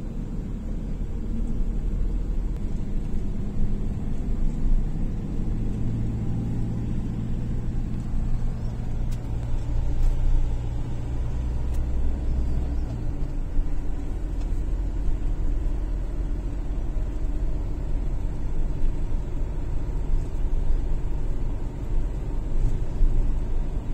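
Camper van driving, heard from inside the cab: steady engine and road rumble. A steadier low engine hum comes in about five seconds in and drops away about halfway through.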